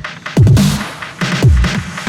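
Loud electronic dance music in a dubstep style, with deep bass drum hits that drop in pitch and sharp drum strikes between them.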